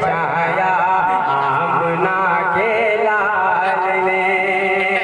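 Devotional singing: a male voice holding a wavering, ornamented melody over a steady drone note.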